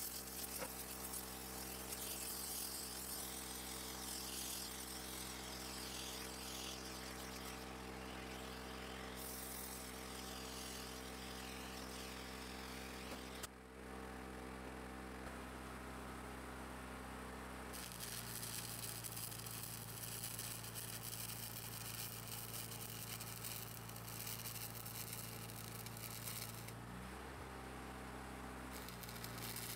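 An engine running steadily with an even hum; its pitch steps to a new speed about two-thirds of the way through and changes again briefly near the end.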